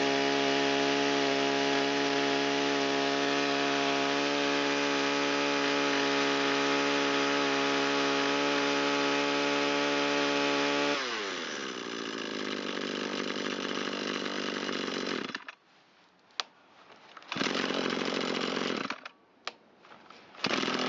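Echo SRM225 string trimmer's small two-stroke engine held at full throttle, then dropping back to a steady idle about eleven seconds in, with the carburettor responding cleanly after being leaned out. It cuts off a few seconds later, and after a pause with a click or two it fires again briefly and then restarts near the end: a warm restart, starting on about half a pull.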